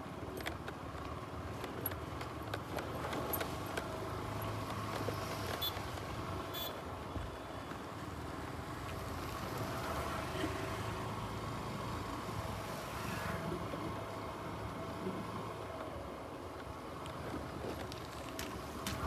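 A motor vehicle running steadily, with road and wind noise and a faint steady hum.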